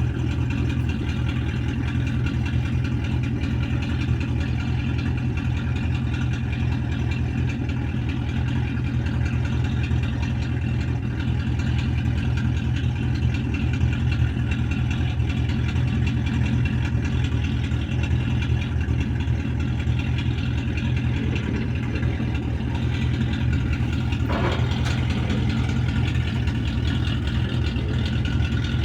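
A vehicle engine running at a steady idle, with no revving, and a faint brief knock near the end.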